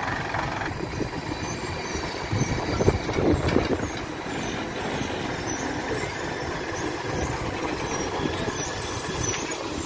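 Heavy diesel truck engine running, louder for about a second around three seconds in.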